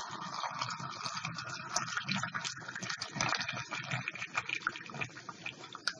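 Boiling water pouring in a steady stream from a stainless steel kettle into a 3-litre glass jar packed with shredded cabbage, a continuous splashing with many small ticks through it.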